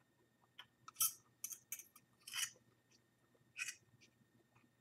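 Several short scrapes and clicks of table handling, about six in under four seconds: a fork against a plate and a paper napkin being handled.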